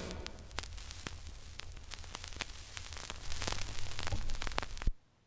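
Vinyl record surface noise after the last song ends: scattered crackles and pops over steady hiss and a low rumble. It gets louder about three seconds in, ends with a sharp click, and then cuts off.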